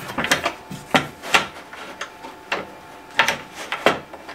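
Aluminium track-saw guide rails and their metal connector brackets being slid and knocked together on a wooden workbench: about six sharp clicks and clunks with light scraping between them.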